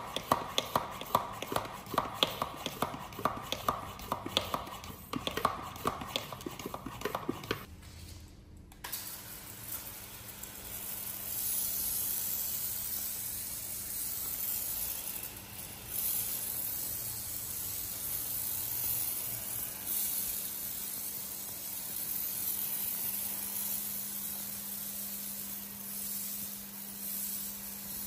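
Hand-pump pressure sprayer being pumped up with quick, repeated clicking strokes for about eight seconds. Then comes a long, steady hiss as it sprays cleaning liquid onto the car.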